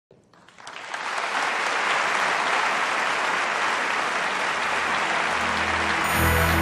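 Audience applauding, building up within the first second and then steady. Near the end, music with a low bass note comes in under the clapping.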